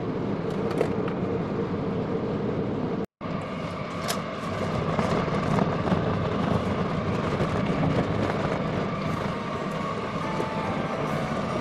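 Car engine and tyre noise heard from inside the cabin while driving, a steady rumble that cuts out for an instant about three seconds in.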